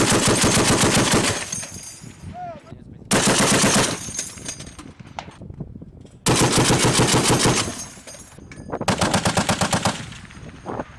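M2 .50-calibre heavy machine gun firing four short bursts of rapid shots, each lasting about a second, with pauses of a second or two between them.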